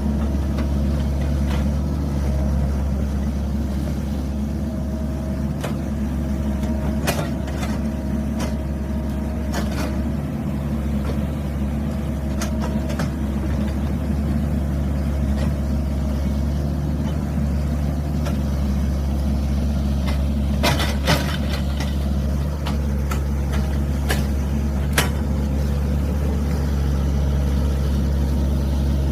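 Excavator's diesel engine running steadily, with several sharp clicks and clanks scattered through, a quick cluster of them about two-thirds of the way in.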